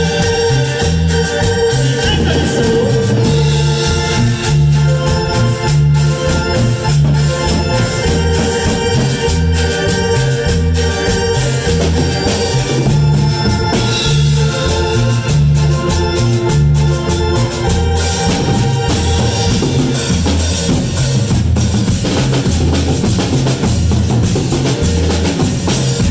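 Instrumental break of a cumbia song: a held organ-like keyboard melody over a repeating bass line and drums, with no singing.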